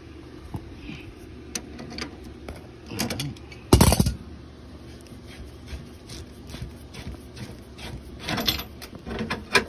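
Hand work on a black-iron gas pipe union: scattered clicks, knocks and scrapes of metal and tools as the furnace's gas line is disconnected, over a steady low hum. The loudest sound is one short, loud knock-and-rattle about four seconds in, and there is a stretch of scraping near the end.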